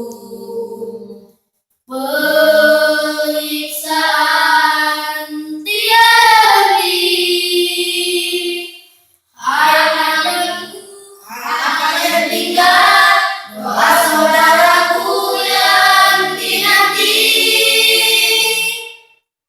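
Voices singing a melody in long held phrases, sounding like a choir, with brief pauses between phrases about two seconds in and about nine seconds in.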